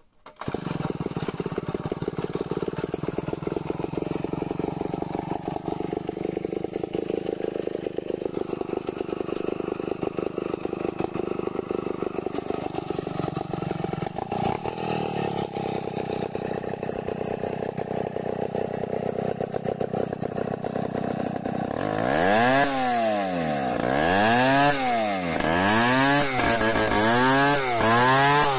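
Stihl 070 two-stroke chainsaw ripping lengthwise through an acacia mangium log, running steadily under load. About 22 seconds in it gets louder and its pitch starts rising and falling repeatedly, about once a second.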